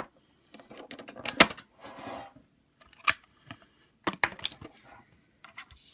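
Clicks and crackles of a clear plastic packaging insert being handled as a trading card is taken out of it, with the sharpest click about a second and a half in.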